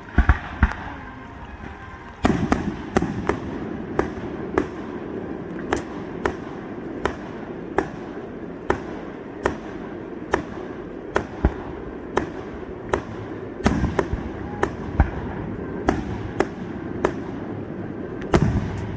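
Aerial fireworks going off: a couple of bangs at the start, then, from about two seconds in, a steady run of sharp bangs, about two a second, to the end.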